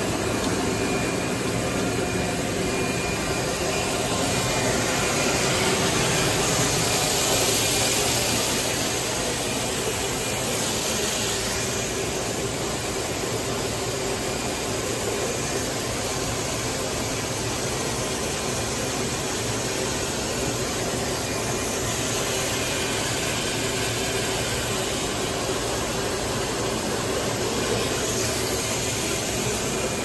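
EVA spiral hose extrusion line running: a steady mechanical hum and hiss with a faint constant whine, the hiss swelling a few times.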